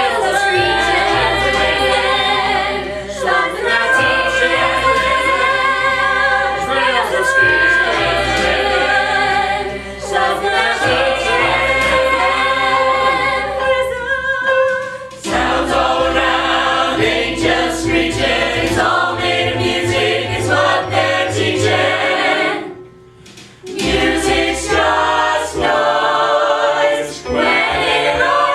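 A chorus of voices singing a musical-theatre number in harmony over an instrumental accompaniment with a steady beat. The music drops away briefly about 23 seconds in, then comes back in.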